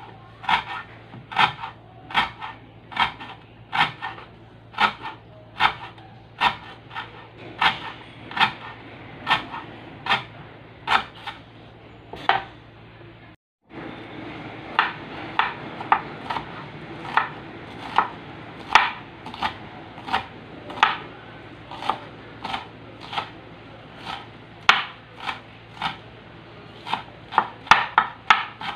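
Chef's knife chopping vegetables on a wooden cutting board: sharp, even knocks a little more than one a second, stopping briefly about halfway through, then resuming and quickening toward the end.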